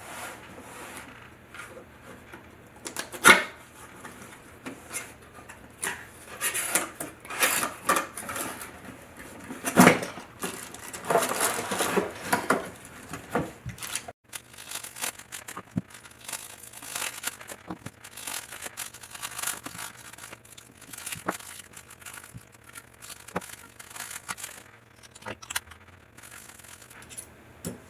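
Handling noise from a tripod impact sprinkler: irregular knocks, rustles and scrapes as its parts are picked up and moved, with two sharper knocks about 3 and 10 seconds in.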